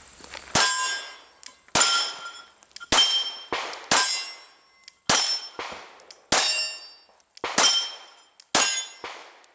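Glock 19 9mm pistol fired at a steady pace, about eight shots roughly a second apart, each one followed by a ringing metallic clang.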